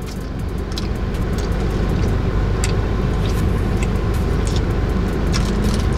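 Steady low rumble of a car heard from inside its cabin, growing a little louder over the first second or so, with scattered small clicks on top.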